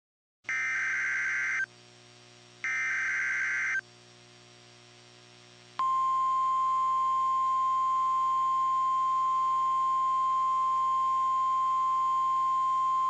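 Emergency Alert System activation on NOAA Weather Radio audio. It opens with two short, raspy bursts of the SAME digital header, then about six seconds in the steady single-pitch 1050 Hz weather radio warning alarm tone begins and holds. Here it heralds a tornado warning.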